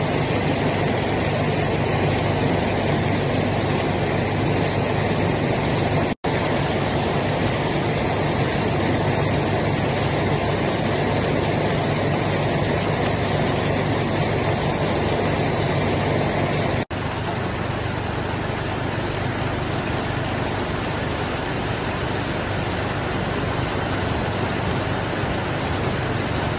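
Heavy rain pouring down while cars drive through deep floodwater, their wheels churning and splashing the water, over a steady low engine rumble. The sound cuts out for an instant twice.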